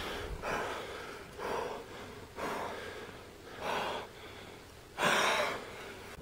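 A person gasping for breath, about five heavy, ragged breaths a second or so apart, the last one, about five seconds in, the loudest.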